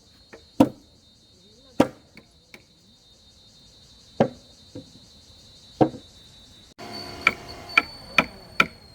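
Sharp, irregular blows of a tool striking wood, coming about twice a second near the end. Underneath runs a steady high insect buzz that stops suddenly about seven seconds in.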